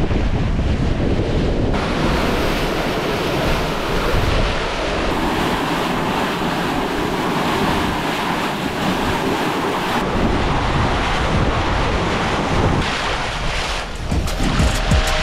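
Water rushing and splashing along the hull of a sailing catamaran under sail, with wind buffeting the microphone.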